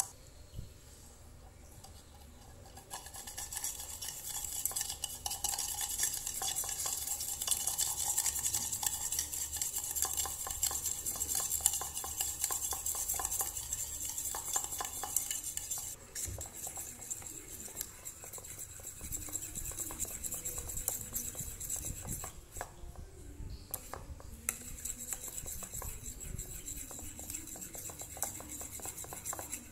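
A fork whisking dalgona coffee mixture by hand in a bowl, its tines clicking rapidly and continuously against the bowl. The whisking starts about three seconds in, is loudest in the first half, goes on more softly after that, and pauses briefly about three-quarters of the way through.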